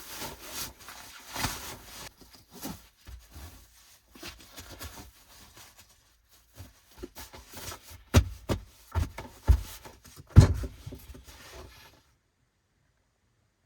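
Irregular rustling, clicks and knocks of things being handled, with several louder dull thumps a few seconds before the end, then sudden silence.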